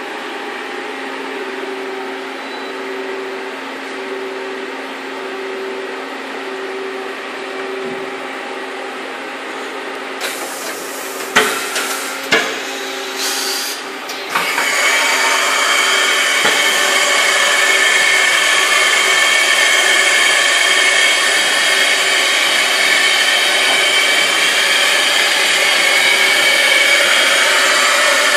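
Mazak VTC-41L vertical machining center running under power: a steady hum with a pulsing tone, a few knocks and clunks around the middle, then a loud steady whirring whine from about halfway on.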